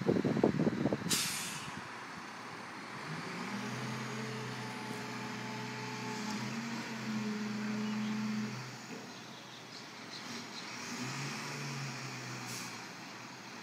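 Garbage truck's air brakes letting off a short sharp hiss about a second in, after a brief loud burst at the start, then its engine running with a steady low drone as it moves off.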